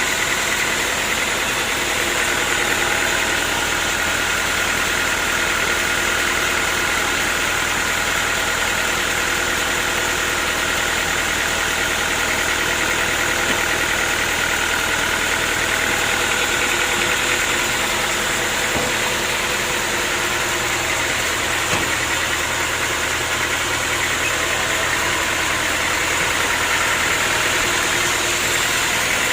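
Sawmill machinery running steadily: a continuous engine-like drone with several steady high tones over it, unchanging throughout.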